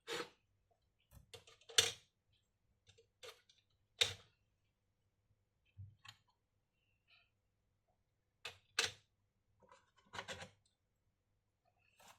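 Hands working on an opened laptop make irregular plastic and metal clicks and short scrapes, spaced a second or two apart.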